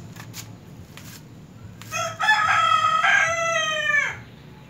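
A rooster crowing once. The crow starts about two seconds in, lasts a little over two seconds and drops in pitch at the end.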